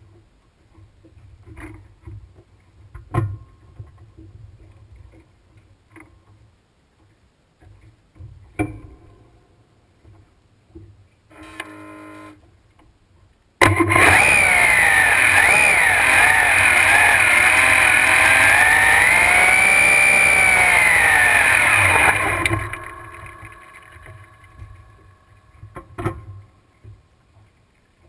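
A few knocks, then a starter cranking for about two seconds before the drag boat's newly built supercharged (blown) alcohol engine fires suddenly and runs very loudly for about nine seconds, its pitch rising and falling once, then dies away.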